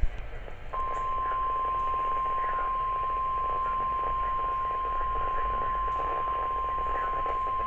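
NOAA Weather Radio warning alert tone: a single steady tone of about 1 kHz, starting about a second in and holding without a break over radio hiss, marking the start of a new warning broadcast.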